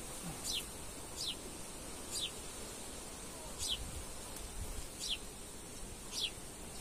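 Agitated honeybees buzzing around open hives. Over the buzzing, a bird gives a short, high, falling call six times, about once a second.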